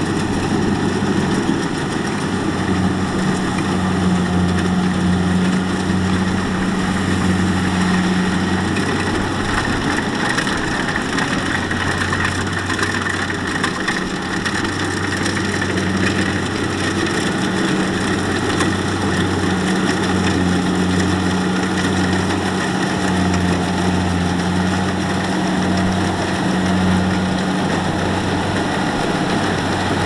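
Kubota combine harvester's diesel engine running steadily under a constant mechanical drone, its low hum wavering slightly.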